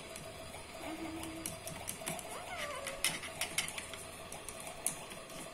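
Small plastic toy utensils clicking and tapping against a plastic toy pot: a few sharp, light clicks over a faint steady hum.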